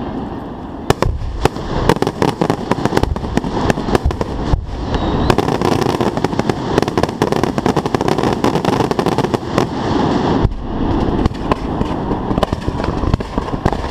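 Fireworks fired at close range from the launch site: a rapid string of sharp bangs and pops over a continuous hissing rush of rising shells and comets, busiest in the middle.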